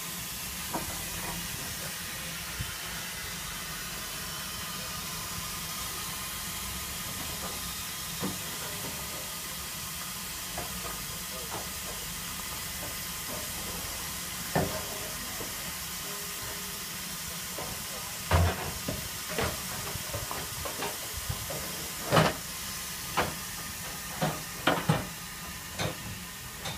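Stationary LMS Ivatt Class 2MT 2-6-0 steam locomotive giving off a steady hiss of steam. From about two thirds of the way in, a series of short, sharp knocks cuts through the hiss.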